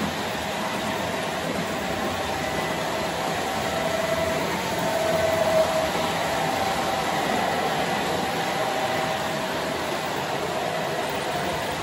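Model freight trains running on the layout: steady rolling of wheels on the track and the hum of the locomotive motors, with a faint whine that grows louder about five seconds in.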